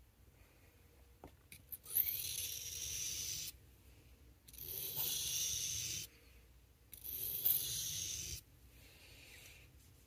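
Small clip-point blade of a Swiss Army knife drawn across a wet whetstone in three long strokes, each a scraping hiss of about a second and a half.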